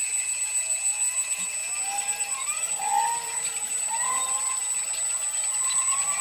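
CNC router running: a steady high whine, with motor tones that slide up and down about once a second as the machine moves.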